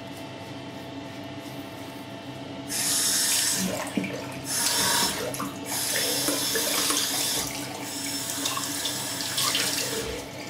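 Bathroom sink tap running, with handfuls of water splashed onto the face in several loud bursts from about three seconds in: rinsing off after the shave.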